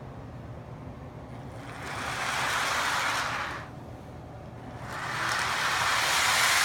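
Lionel O-gauge remote-controlled model train running, with a steady low hum and a hissing noise that swells up twice.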